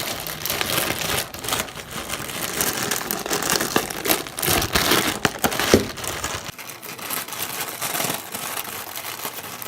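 Plastic packaging crinkling and rustling in the hands while clipper guards are unpacked. The crackle is dense and uneven, thinning out after about six seconds.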